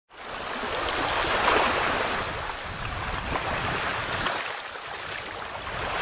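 Steady rushing water noise like surf or a stream, swelling slightly and then easing.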